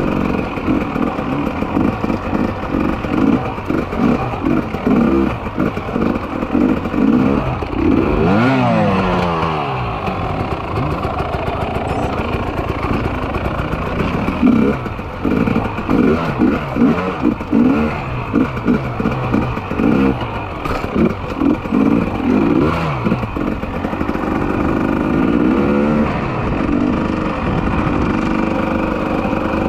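300 cc two-stroke enduro motorcycle ridden on gravel, heard from the bike itself: the engine revs up and drops back again and again as the rider works the throttle, with wind and rattle on the microphone.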